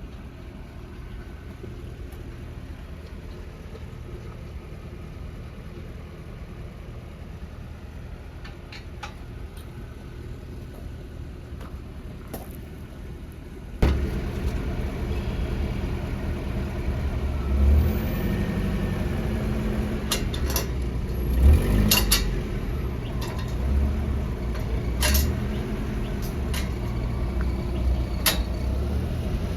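A vehicle engine running with a low, steady rumble. About halfway through it suddenly becomes much louder, with scattered clanks and rattles over it.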